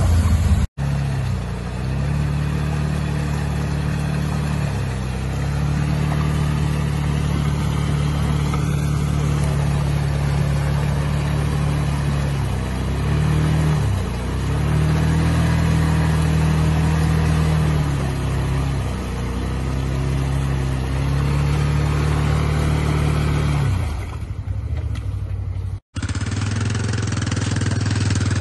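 Can-Am Defender side-by-side engine revving hard in long surges, holding high rpm and easing off several times as it churns through deep mud. Near the end it cuts to another ATV's engine running.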